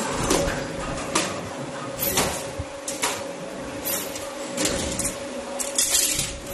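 Automatic CNC flat wire forming machine at work: a steady hum with a sharp clack about once a second as the bending head turns and strikes the flat steel strip. Short bursts of hiss come between the clacks.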